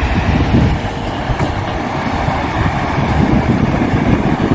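Albion Falls waterfall, a steady roar of falling water with an uneven low rumble underneath.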